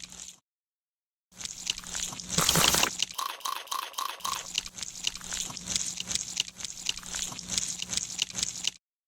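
Eating sound effects for an ASMR mukbang: rapid wet crunching and chewing clicks, with a short loud hiss about two seconds in and a quick run of five short beeps just after. The sound cuts out completely for about a second near the start and again at the end.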